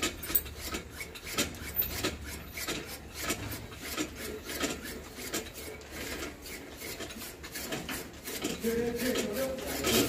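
Small hand-cranked chaff cutter chopping mustard greens, spinach and fenugreek for saag: a quick, steady run of clicking, rasping cuts as the wheel is turned and the blade slices through the leaves.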